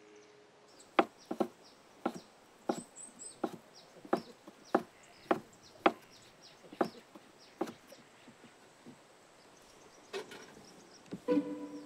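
Cleaver chopping boiled water buffalo skin on a wooden chopping board: a run of sharp knocks, about two a second, that stops after about eight seconds. Plucked string music begins near the end.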